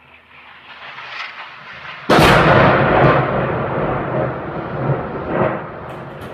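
Shelling: a rushing sound builds for about two seconds, then a shell explodes with a sudden loud blast. Its rumbling echo fades over several seconds, with a few smaller bangs in the tail.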